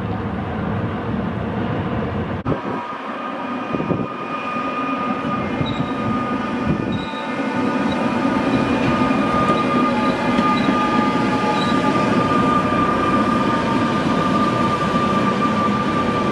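Tram rail-grinding train running along street tracks: a steady rumble with a high metallic whine, rising in level over the second half. The sound breaks off and changes abruptly about two and a half seconds in.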